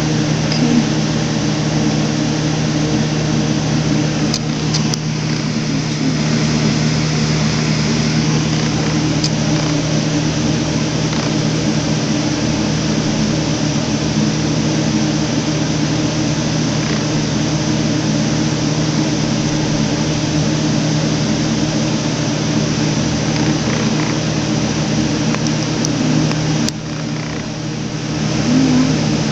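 Steady low mechanical hum with a few faint clicks, dipping briefly near the end.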